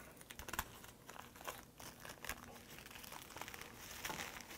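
Faint crinkling and crackling of a dry sheet of rock laver (dol-gim) being folded and rolled by hand around rice, with many small crackles that get a little busier near the end.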